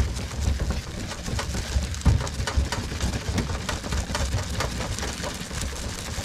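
Sponge cloth with Pikal metal polish being rubbed back and forth over a stainless steel panel: an irregular scrubbing and scratching with many small clicks, and low bumps as the plate shifts on the table.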